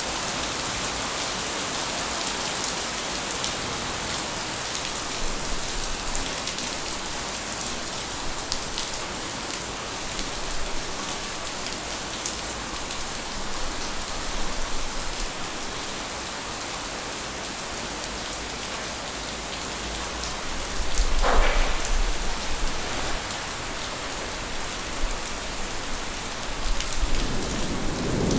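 Steady summer rain falling and splashing on hard surfaces, with individual drops ticking close by. About two-thirds of the way through comes a low rumble of thunder, and another rumble starts to build near the end.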